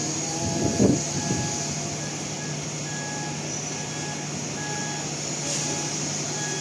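Truck reversing alarm beeping about once a second over a steady engine hum, with a brief thud about a second in.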